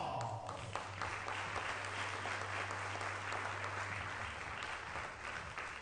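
Audience applauding with dense clapping that tails off near the end, over a low steady hum that stops about four seconds in.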